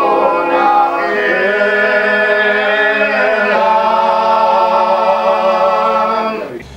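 Men singing together unaccompanied, holding long drawn-out notes in chords. The chord changes about three and a half seconds in, and the singing fades out near the end.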